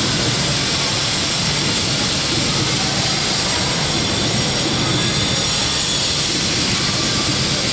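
CRH2A high-speed electric multiple unit passing close below: a loud, steady rushing noise of the train running by, with no break or change.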